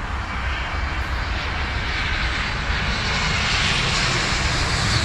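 Jet airliner passing low overhead on its landing approach, its engine roar growing steadily louder.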